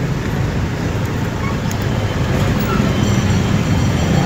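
Steady city traffic and road noise with a low rumble, heard while riding an e-bike along the street.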